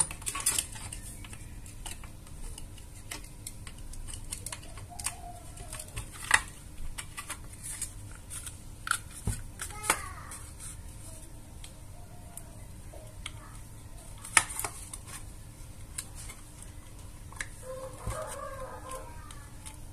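Scattered clicks and knocks of a plastic power-adapter case and circuit board being handled and fitted together, with sharper clicks about 6, 10 and 14 seconds in.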